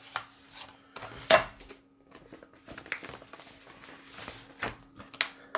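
Sheets of paper in clear plastic sleeves being handled and slid across a cutting mat: rustling with a few sharp taps, the loudest about a second in. A faint steady hum runs behind.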